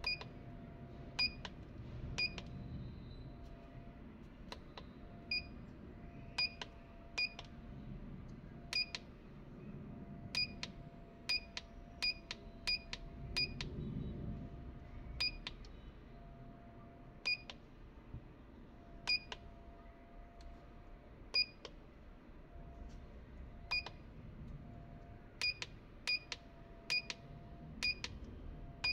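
Keypad beeps from a Mucar TPMS T90 tyre-pressure sensor tool as its buttons are pressed to scroll through menus. There are about thirty short, high single beeps at irregular spacing, some coming in quick runs of two to four.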